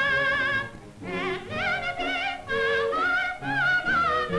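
Operatic soprano singing held notes with wide vibrato over orchestral accompaniment, breaking off briefly about a second in before starting a new phrase.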